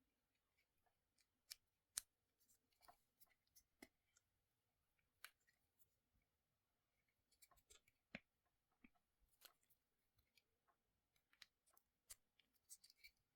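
Faint, irregular snips and clicks of scissors cutting a piece of bicycle tire rubber.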